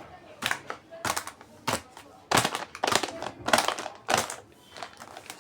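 Plastic snack packaging crinkling and rustling as it is handled, in a quick series of short bursts that are densest and loudest in the middle.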